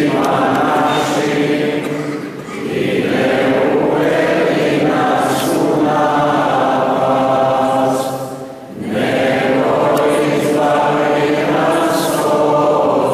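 A choir singing in long, held phrases, with two short breaks between phrases, about two seconds in and again about eight and a half seconds in.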